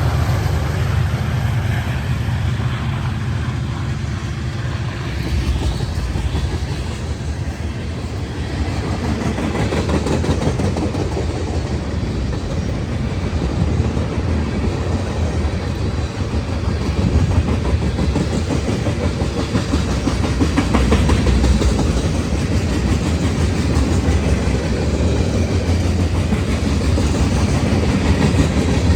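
Norfolk Southern freight train's cars rolling past with a steady rumble and wheels clacking over the rail joints.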